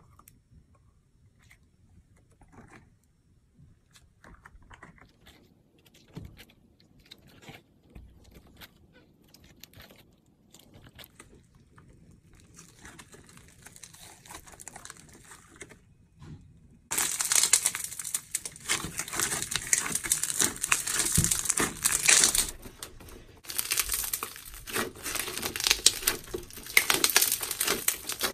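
Clear slime being stretched and squeezed by hand. It starts with faint sticky clicks and pops, then a little past halfway turns to a loud, dense crackling as the trapped air pops. The crackling breaks off for a moment and starts again.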